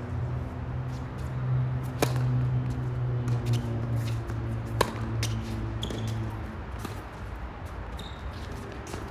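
Tennis rally on a hard court: sharp racket-on-ball hits about two seconds in and again near five seconds, lighter ball bounces, and a couple of brief shoe squeaks. Under it runs a low hum with a few pitched lines that stops about six and a half seconds in.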